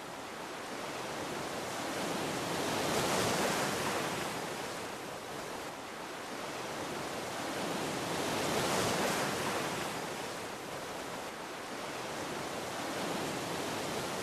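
Ocean surf washing in, a steady rush of noise that swells three times as waves break, about every five to six seconds.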